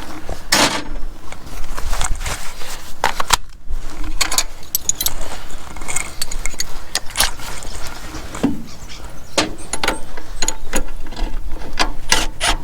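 Hands-on mechanical work: irregular clicks, clinks and knocks of hand tools and metal fittings being handled, with rubbing and squeaking in between.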